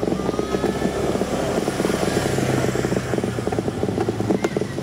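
A motorcycle's engine running close by, with a steady low hum that is strongest around the middle.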